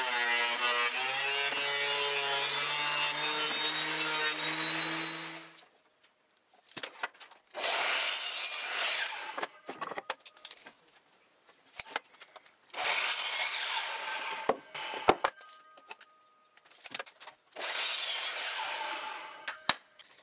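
DeWalt benchtop thickness planer running with a board feeding through, its whine wavering in pitch, until it cuts off about five and a half seconds in. Then a miter saw makes three short cuts through wooden boards about five seconds apart, with knocks and clicks of the wood being handled between the cuts.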